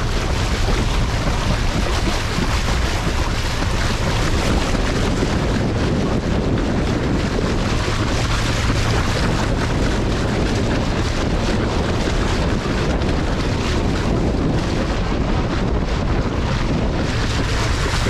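Steady, loud wind buffeting the microphone over water rushing along the side of a moving boat.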